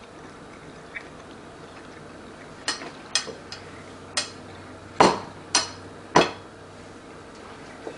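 Dishes and cutlery knocking and clinking on a kitchen counter: six sharp knocks over about three and a half seconds, the last three the loudest.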